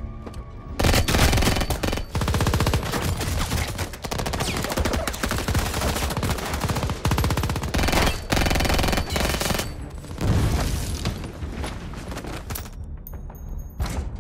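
Rapid, heavy gunfire in a film gunfight. It starts about a second in and keeps coming in dense volleys with short breaks, then thins out near the end to a few scattered shots.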